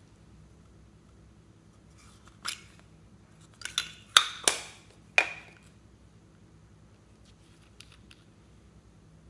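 Heart-shaped plastic makeup compact handled and snapped open: a run of sharp plastic clicks and clacks starting about two and a half seconds in, the loudest near the middle, then a faint tick or two near the end.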